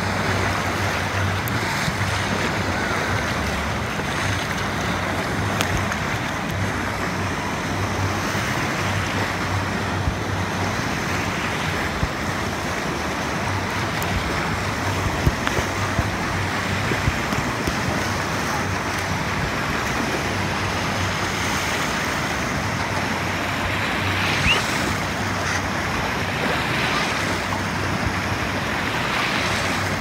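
Wave pool surf: shallow water washing and splashing up a sloped beach entry in a steady, continuous rush.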